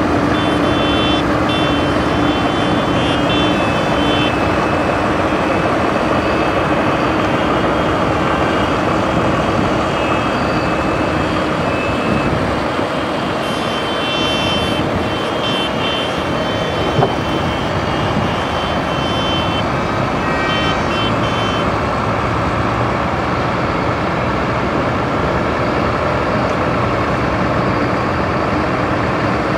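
Many farm tractors' diesel engines running together as they pull ploughs: a dense, steady din with a constant low hum. High-pitched beeping comes and goes, at the start and again around the middle, and there is one sharp knock about halfway through.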